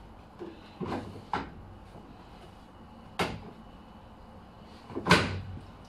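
Four sharp clunks and knocks of a door or lid being handled at a washing machine, spaced unevenly, the loudest about five seconds in.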